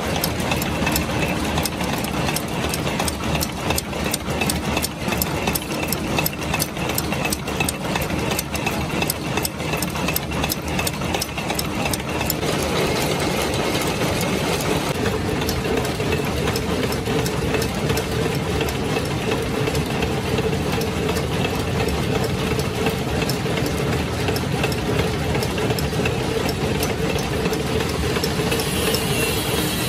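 Screw-making machines running. First a flat-die thread-rolling machine clatters with fast, even clicking. About twelve seconds in, the sound turns to a steadier machine drone, with the clicking fading into the background.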